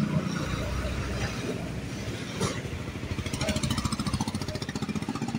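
Street traffic passing, with a small engine running in a steady rapid chug that grows louder past the middle. There is a single knock about two and a half seconds in.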